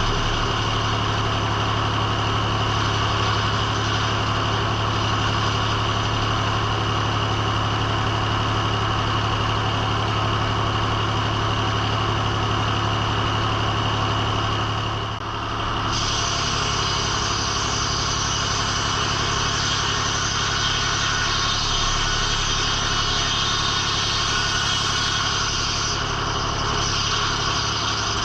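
Engine-driven circle sawmill running steadily with a strong low hum. About halfway through the sound briefly dips, then carries on with an added high hiss.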